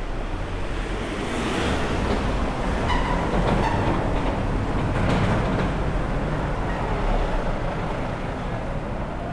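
A vehicle passing along the street, its noise building over the first few seconds and easing off near the end.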